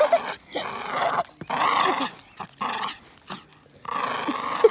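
A dog growling in a series of short rough bursts while tugging on a rope in play.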